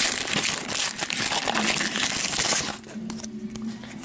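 Foil wrapper of a trading-card pack crinkling and crumpling as it is handled, dying down after about three seconds.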